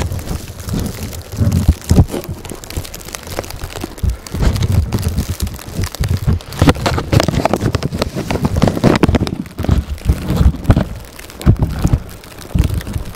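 Blizzard wind buffeting the microphone in irregular, gusty low rumbles over a steady hiss.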